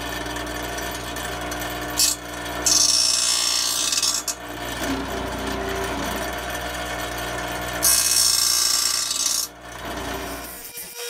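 Electric grinding wheel of a Belsaw 10452 saw sharpener running steadily. It grinds the fronts of the teeth on a circular saw blade at a bevel in two passes, each about a second and a half of loud hissing grind. The motor hum cuts off near the end.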